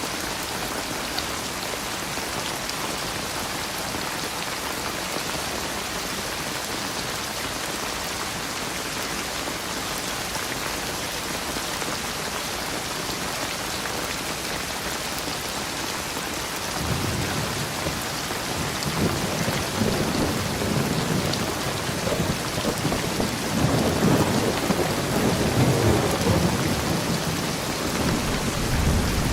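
Steady rain falling as an even hiss. A little past halfway a low, rolling rumble of thunder comes in and swells in waves toward the end.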